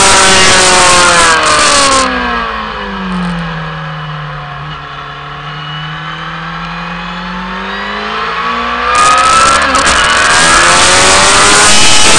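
Sport motorcycle engine heard on board over wind rush at track speed. About two seconds in the throttle closes and the engine note falls as the bike slows for a corner. The note then climbs as the bike accelerates out, and the loud engine and wind rush return about nine seconds in.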